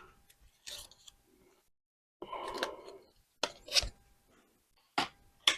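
Small plastic-and-metal clicks and a brief scrape as a laptop RAM module is handled and set at its memory slot: a scrape a little past two seconds in, then a few sharp clicks.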